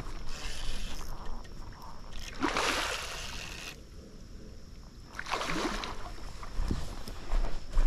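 Hooked chinook salmon thrashing at the surface of a shallow stream, making several short bursts of splashing.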